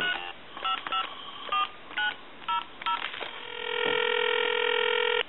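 AT&T 210 Trimline touch-tone phone dialing a seven-digit number: seven short DTMF beeps within about three seconds. A steady tone follows on the line for about two seconds and then cuts off: the ringback of the call going through.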